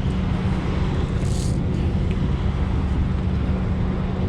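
Semi truck's diesel engine idling with a steady low hum, with a short hiss about a second and a half in.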